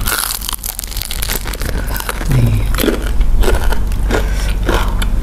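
Close-up eating: biting into and chewing roast duck and fried food, with many short crisp crunches and crackles.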